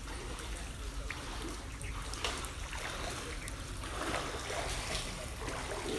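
Shallow floodwater sloshing and trickling under a steady low rumble, with a brief louder swell of water noise about four seconds in.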